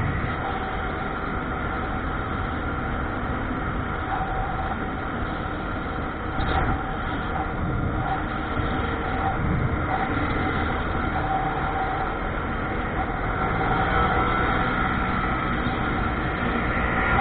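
A vehicle running steadily, a continuous rumble with a faint steady whine over it.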